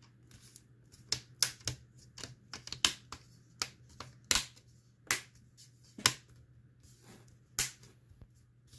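Plastic retaining clips of a ThinkPad X240's screen bezel snapping into place as the bezel is pressed back onto the lid: about ten sharp clicks at irregular intervals. Each click is a clip seating, the sign that the bezel is going back in properly.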